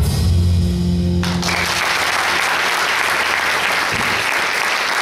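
Performance music ending with a held low chord, then audience applause starting about a second in and going on steadily.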